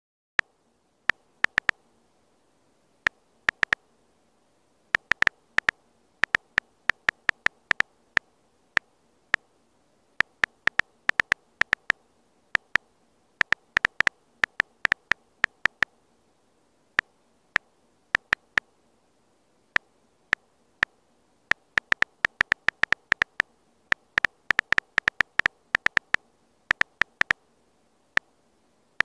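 Key-press clicks of a phone's on-screen keyboard during typing: a short click for each tap, coming in quick irregular runs broken by brief pauses.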